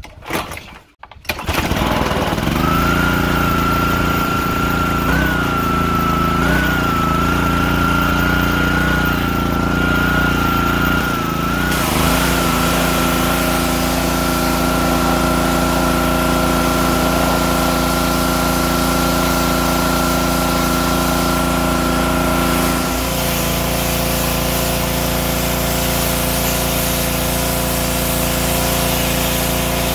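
Gas pressure washer's small engine is pull-started, catching about a second in and then running steadily, with water spraying from the wand. Its note changes twice, about twelve and twenty-three seconds in.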